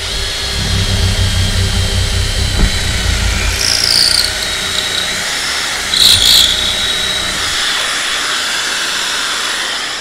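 Cordless drill boring a connector hole through hardwood with a stop-collared bit in a Festool drilling guide, with a Festool CT 36 dust extractor running and pulling chips through the guide's hose. The drill's rumble stops about three-quarters of the way through while the extractor keeps running; brief high squeaks come about four and six seconds in.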